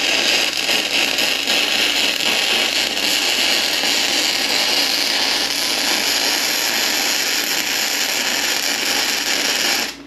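Electric arc welding: a steady crackling hiss that runs unbroken and cuts off just before the end, as a steel nut is welded onto 3/4-inch threaded rod to make a bolt.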